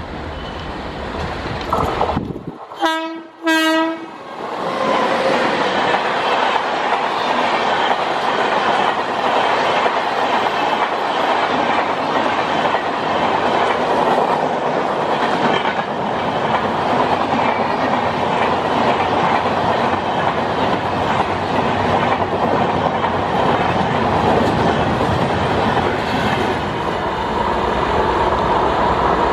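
Electric locomotive sounding two short blasts on its air horn about three seconds in, then a high-speed express train running through without stopping: a long, steady rush of coach wheels passing close by on the rails.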